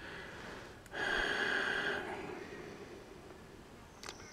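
A single breathy sound from a person near the microphone, about a second long, starting about a second in. A faint click follows near the end.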